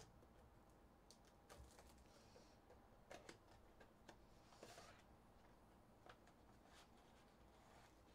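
Faint crinkling and scattered soft clicks of plastic shrink wrap being torn off a sealed trading-card box, and of the cardboard box being opened.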